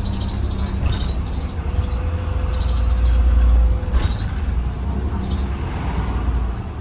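Heard from inside a 2020 Blue Bird Vision school bus under way: a steady low engine and road rumble that swells for a moment about three seconds in, then eases off. Two sharp knocks or rattles come about a second in and again near four seconds.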